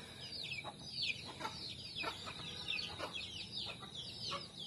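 Faint, high-pitched chirps from an animal, about two to three a second, each a quick downward sweep.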